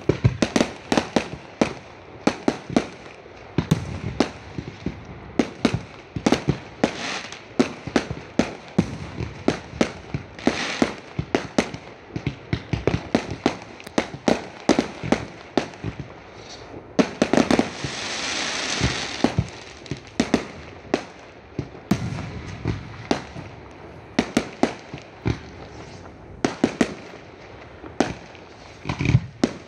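Fireworks going off in a rapid, irregular run of sharp bangs, several a second. A little past halfway comes a steady hiss lasting about two seconds.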